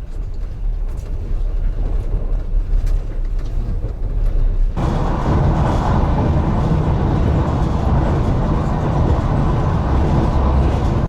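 Passenger train running: a steady low rumble with faint clicks. About five seconds in it gives way abruptly to a louder, fuller rumble.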